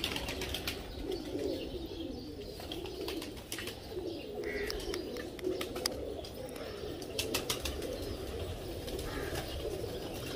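Pigeons cooing without a break, a low wavering sound, with scattered light clicks and taps throughout.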